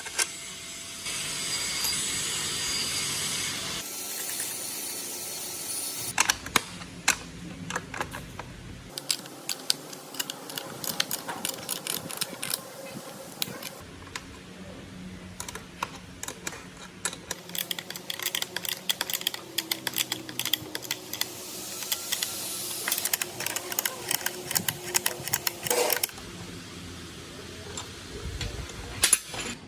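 Dense, irregular clicking and tapping in several short segments that change abruptly, some with a steady high hiss behind them.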